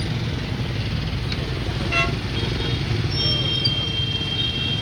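Motorbike traffic with engines running in a steady low rumble, a short horn toot about two seconds in, and a thin high steady tone for the last second or two.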